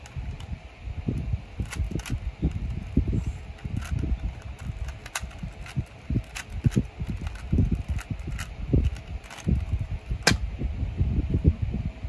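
A 3x3 Rubik's Cube being twisted quickly by hand: a run of irregular plastic clicks and clacks as its layers turn, over low thumps of handling, with one sharper knock near the end.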